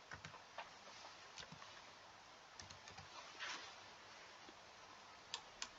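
Near silence with faint, scattered clicks of a computer keyboard and mouse, two sharper clicks near the end.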